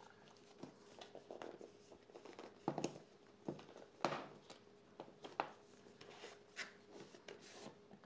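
Faint rustles, scrapes and light taps of a small cardboard product box being handled and opened by hand, with a few sharper knocks about three and four seconds in. A faint steady hum runs underneath.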